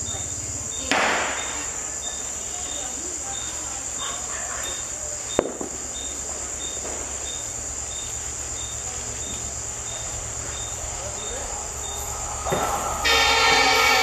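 Insects chirping steadily over a low hum, with a brief rushing burst about a second in and a sharp knock a few seconds later. Near the end an approaching EMD WDP4B diesel locomotive's multi-tone air horn starts sounding loudly.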